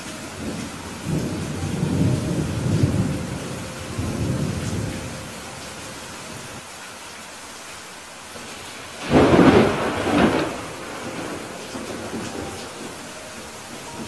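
Steady rain with thunder: a low rolling rumble in the first few seconds, then a louder, sharper thunderclap about nine seconds in that rumbles away over a couple of seconds.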